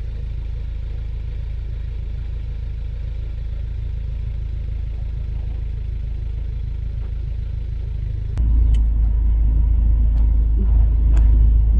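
Steady low rumble of a car on the move. About eight seconds in it abruptly becomes louder and deeper, with a few sharp clicks.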